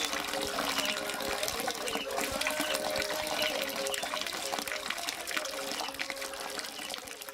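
Running water, a steady rushing, with short high chirps repeating about once a second and faint held tones under it.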